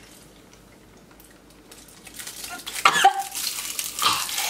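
Shiny plastic wrappers on Pan Pasand hard candies crinkling and crackling as they are picked and bitten open. The crinkling starts about two seconds in, after a quiet start, and grows busier toward the end.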